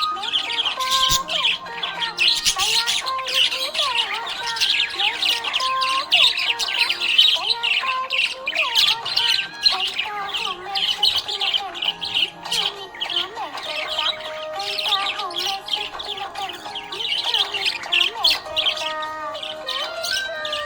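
Small pet parrots chattering and squawking without pause, a dense stream of rapid chirps, over background music with held notes.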